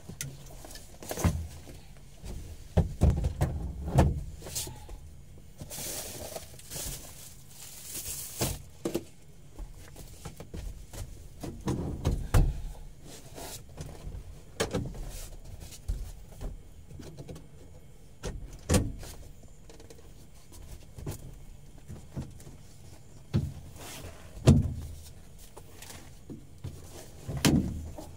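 Scattered thumps and knocks with cloth and plastic rustling as things are moved about inside a truck cab, in an irregular rhythm.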